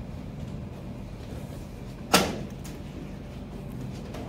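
A single sharp knock or bang about two seconds in, dying away quickly, over a steady low room hum.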